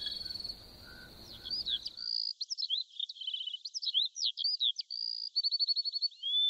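Crickets trilling, giving way about two seconds in to songbirds chirping and trilling in quick, varied calls.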